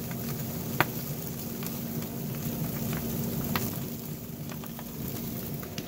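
Salmon pieces sizzling and crackling in the open flames of a smoker grill that has caught fire, with a few sharp pops and a steady low hum underneath. The grill overheated far past its 180°F setting and the fish is burning.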